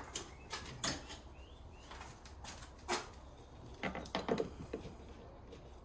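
Light clicks and taps of a small hand tool working at the plastic cap over a car's windscreen wiper-arm nut, with a short run of louder scrapes and knocks about four seconds in.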